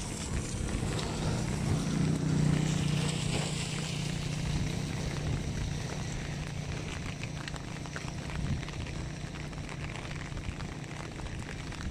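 Steady rain falling onto flooded river water, with a low rumble and a steady hum beneath it that is strongest in the first few seconds.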